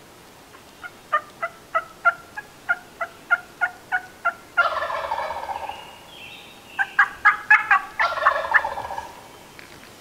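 A wild turkey gobbler gobbling twice, about four and a half and eight seconds in. Before the first gobble comes a run of about a dozen evenly spaced call notes, about three a second, and a quick burst of notes comes just before the second.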